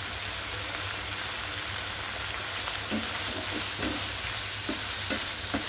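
Chicken pieces sizzling steadily as they fry in a pan, with a few short clicks of stirring in the second half.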